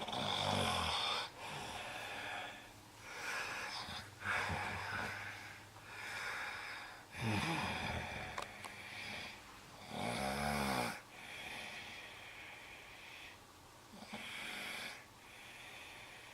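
A sleeper snoring, with wheezy, hissing breaths between the snores. The breaths come irregularly, every one to three seconds, and three loud rattling snores stand out: near the start, about seven seconds in and about ten seconds in. It is breathing that the uploader is concerned about.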